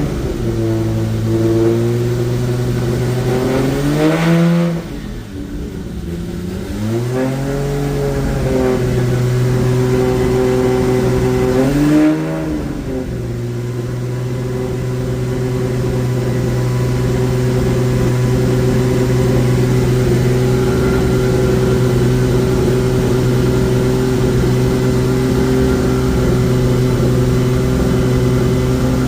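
Freshly rebuilt Toyota 2JZ turbocharged inline-six running on one of its first starts. It is revved up and back down about four seconds in and twice more before the middle, then held at a steady raised speed, as when breaking in a new engine.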